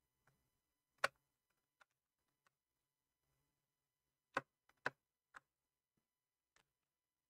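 A few short, sharp clicks and taps over near silence: one loudest about a second in, then three close together around four to five and a half seconds. These are hands handling the screws and plastic bottom cover of a Dell Latitude E7470 laptop during screw removal.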